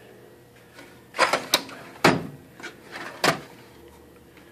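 Drawers of a metal tool chest being pulled open and pushed shut, with several sharp clacks and the rattle of tools and tubes inside them.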